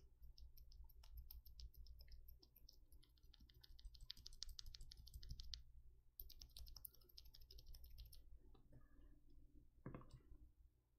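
Loose lubed vintage Cherry MX Black linear keyboard switches pressed rapidly by hand, giving faint rapid clacks in two runs of about two seconds each in the middle.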